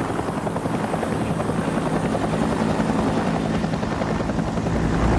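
Formation of UH-1 Huey helicopters flying low: a fast, even rotor beat with a steady engine drone, growing slightly louder. Near the end a deeper steady engine hum comes in.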